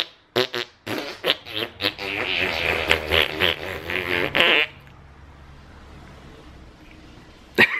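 A man smacking kisses and blowing a raspberry against a baby's cheek: a run of wet lip smacks, then a longer buzzing raspberry that cuts off suddenly about four and a half seconds in, with a couple more smacks near the end.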